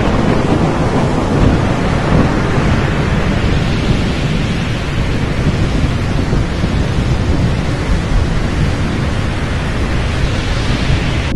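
Audience applauding, a dense, loud, steady clatter of many hands clapping at the end of a live song.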